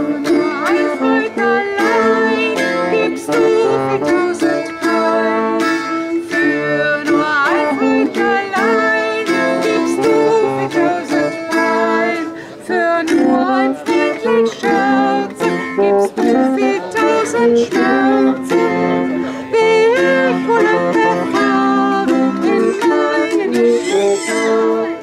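Medieval-style folk music played on plucked string instruments: a busy, continuous run of picked notes.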